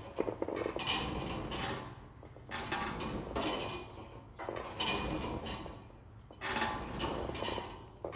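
Plate-loaded leg press sled moving through repetitions, its metal carriage and weight plates clinking and rattling in recurring bursts every second or two.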